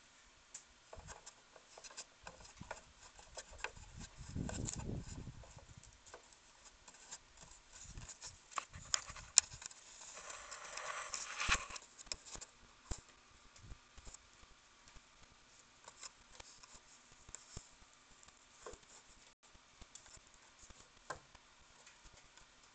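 Faint, scattered taps and scratches of a raccoon's claws on the wooden deck post and railing, with a short low rumble about four seconds in and a louder patch of scrabbling about ten seconds in.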